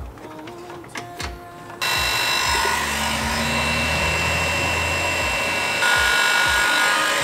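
A Makita heat gun switched on about two seconds in, its fan blowing with a steady hiss and whine, then stepping up louder near the six-second mark. It is shrinking heat-shrink tubing over crimped wire joins. A few light clicks of wire handling come before it starts.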